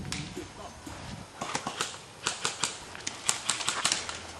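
Gas-blowback airsoft pistols firing single shots as sharp, irregular snaps. They are sparse at first and come thick and overlapping, several a second, from about a second and a half in.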